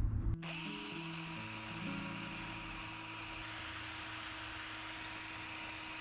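Cordless drill spinning a wire brush against a small part held in the hand: a steady high whirr and hiss that starts a moment in, with background music underneath.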